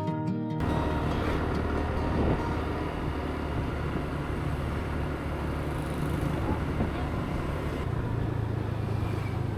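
Outdoor ambience with a steady low engine rumble from passing or idling motor traffic, over a general haze of noise; it takes over when guitar music cuts off just under a second in.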